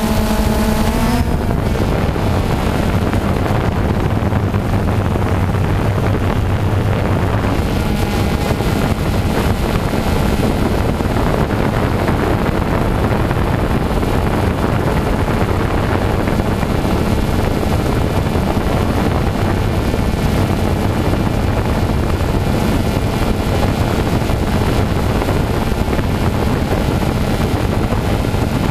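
Quadcopter drone's electric motors and propellers whirring steadily, heard through its on-board camera. A whine rises in pitch and breaks off about a second in.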